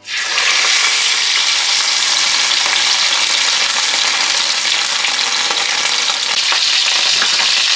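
Wild boar saddle searing in hot fat in a roasting pan: a loud sizzle that starts suddenly as the meat is laid in, then runs on steadily.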